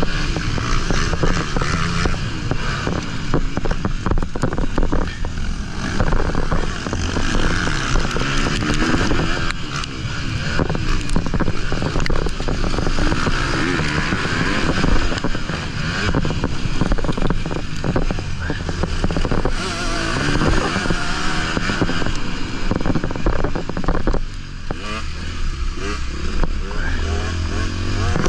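Honda 250 motocross bike engine heard from on the bike as it is ridden around a dirt track, the revs rising and falling over and over as the rider accelerates, shifts and backs off. Wind rushes over the microphone, and frequent short knocks come through as the bike hits bumps.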